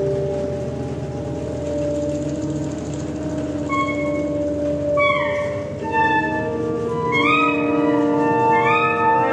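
Saxophones playing long held notes in a low chord. About four seconds in, higher notes join, and from about five seconds on they bend down and scoop back up again and again.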